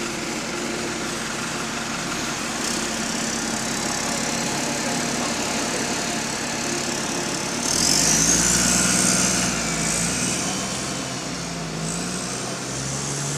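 Bus diesel engine running steadily. Then, about eight seconds in, it gets louder for a couple of seconds, with a hiss and a whine that glides up in pitch.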